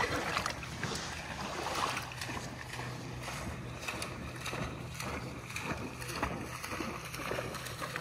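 Water splashing and sloshing as a retriever runs out through shallow floodwater on a retrieve, a busy, irregular run of splashes.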